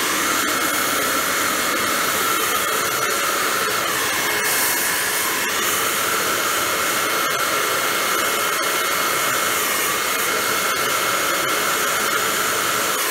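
Two-stage electric blower running steadily, pushing air through a homemade venturi and pulling a propane torch flame into the tube, with the flame's hiss mixed in. A whine sits over a steady rush and drops out briefly twice.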